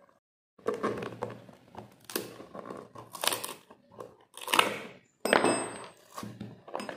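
A rubber boot sole and leather upper handled and scraped with a small hand tool: short scraping, rustling strokes about a second apart, starting about half a second in.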